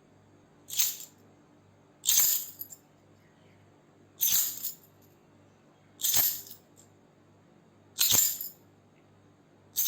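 A bunch of keys shaken in short jingles, one about every two seconds, each lasting about half a second. A faint steady hum lies underneath.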